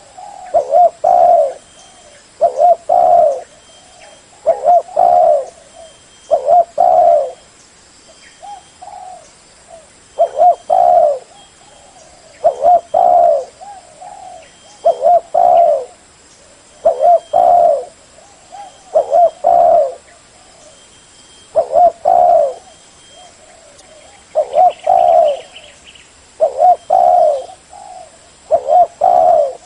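Spotted dove cooing, repeating its short phrase of a few notes about every two seconds, with one longer pause about a third of the way through.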